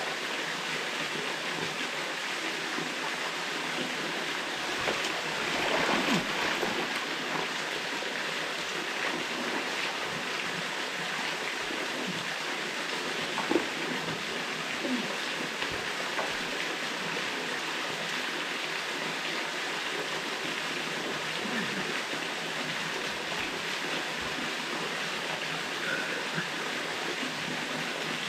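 Waterfall pouring steadily into a pool, a constant rushing of water. About six seconds in there is a brief louder swell, and near the middle a single sharp knock.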